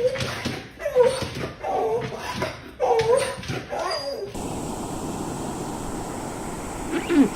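A dog whining in short pitched calls that bend up and down, about one a second, for the first four seconds. Then a steady hiss, with a short falling yelp near the end.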